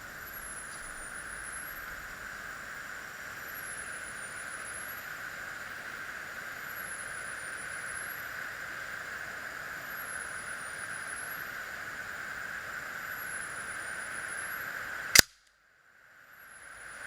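A single shot from an Air Venturi AV-46M single-stroke pneumatic match air pistol: one sharp crack about 15 seconds in, over a steady hiss. Right after the shot the sound drops out almost completely for about a second, then fades back in.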